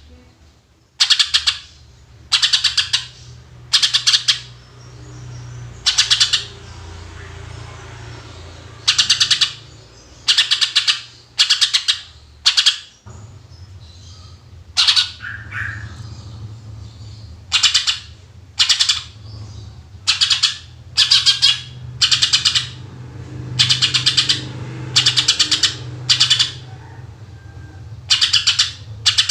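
Greater green leafbird (cucak ijo) singing loud, sharp 'tembakan' phrases. Each is a short burst of rapid notes, repeated about once a second, often in pairs or runs, with a brief pause or two. A low steady hum runs underneath.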